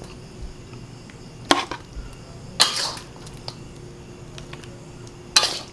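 Spatula scraping and knocking against a wok and plate as cooked chicken is scooped out and served: three short clatters, the middle one longest and loudest.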